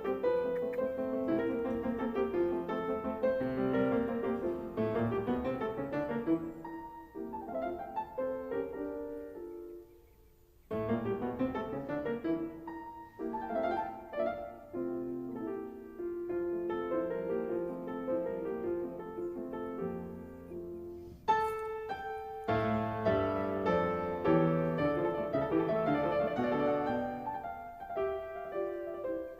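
Background piano music playing a melody, breaking off briefly near the middle and resuming.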